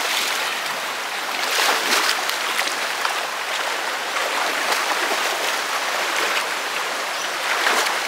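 Shallow river water rushing steadily, with splashing from people wading and kicking through the current, heaviest about a second and a half in and again near the end.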